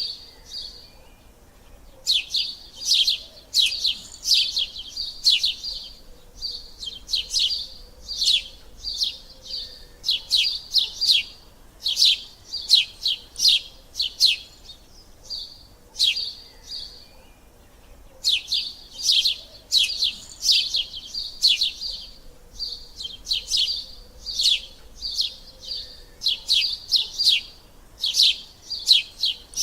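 Sparrow chirping in quick runs of short, sharp, high notes, with two brief pauses: one near the start and one about halfway through.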